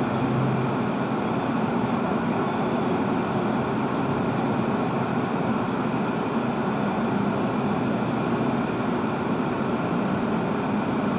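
Steady road and engine noise of a car cruising at motorway speed, heard from inside the cabin through a dash cam's microphone: a constant rushing drone with no distinct events.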